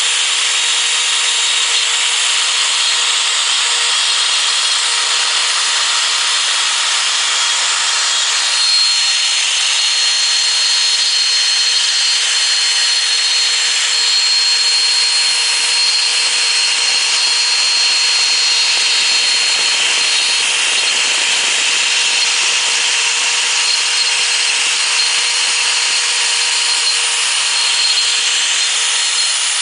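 Home CNC router's spindle running and cutting wood: a steady high whine over constant cutting noise, unchanging throughout.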